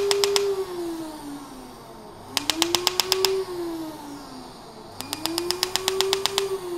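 Er:YAG laser handpiece of an Asclepion MCL31 Dermablate firing fractional pulses into facial skin: little pangs about ten a second, in three bursts of roughly a second each. Each pang comes from water in the skin evaporating. Behind them runs a humming tone that sinks in pitch between bursts and climbs back as firing resumes.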